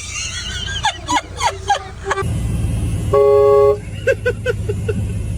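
An air horn blasts once, about three seconds in: a single steady, loud note lasting just over half a second, over a low steady rumble.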